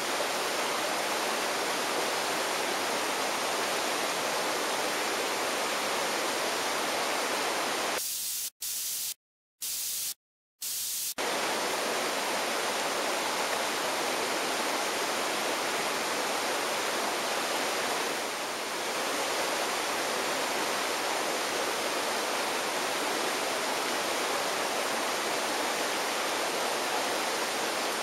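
Steady, even rushing noise, like running water, broken by three brief dropouts to silence about eight to eleven seconds in.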